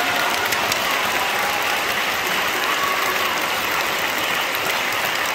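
Audience and performers applauding: steady, dense clapping with no break.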